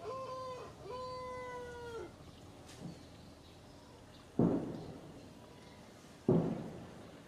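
Newborn macaque crying: two drawn-out, wavering coo-like whimpers in the first two seconds. These are followed by two dull thumps, about two seconds apart, which are the loudest sounds.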